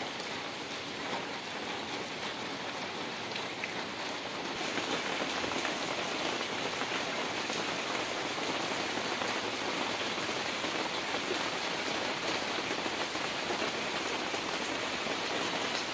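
Heavy rain falling on floodwater, a steady hiss of drops hitting the water surface that grows louder about four and a half seconds in.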